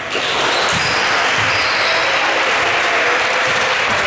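Basketball bouncing on a gym floor, a string of dull thumps about every half second, under a loud, even wash of crowd and court noise that swells up right at the start.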